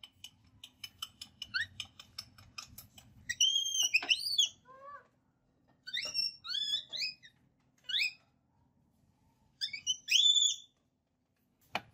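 A baby monkey gives repeated high-pitched, whistle-like squeaks and chirps that glide up and down in pitch, in short bursts, the loudest near the end. For the first three seconds a quick run of light ticking clicks sounds under them.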